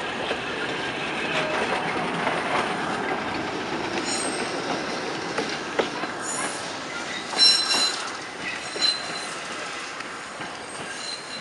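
Montreal streetcar no. 1959 pulling away along the track, its steel wheels rumbling and clicking on the rails. From about four seconds in come high-pitched wheel squeals as it rounds the curve, loudest a little past halfway, then fading as it draws off.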